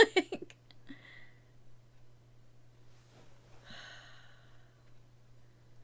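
Quiet room tone with a steady low electrical hum, and a faint breathy exhale, like a sigh, about four seconds in.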